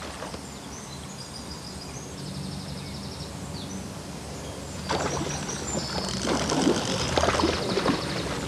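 Small birds chirping and trilling over a steady low hum. From about five seconds in, a louder rough, crackling noise comes in and runs on in uneven surges.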